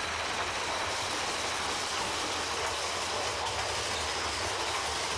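Big Thunder Mountain Railroad mine-train roller coaster cars running on their track, heard from a seat aboard: a steady rumble and rattle of the wheels and cars.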